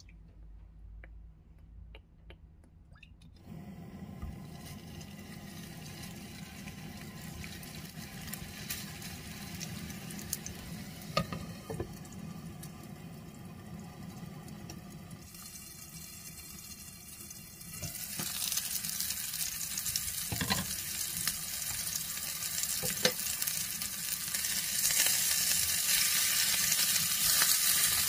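Hamburger patties sizzling in a frying pan, a steady hiss that grows louder about 18 s in and again near the end, with a few small clicks and ticks.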